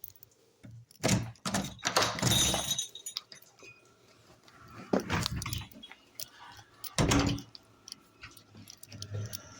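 A few scattered clattering knocks and metallic jingles, with quiet gaps between them, as dogs are let out of the house.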